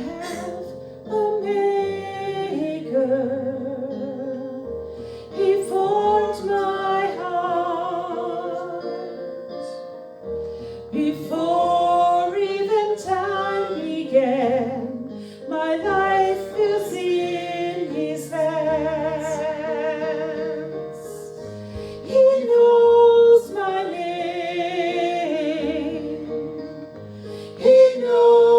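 A woman singing a worship hymn with vibrato over sustained instrumental accompaniment.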